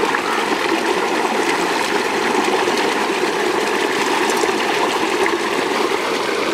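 Steady rushing of running water, even and unbroken throughout.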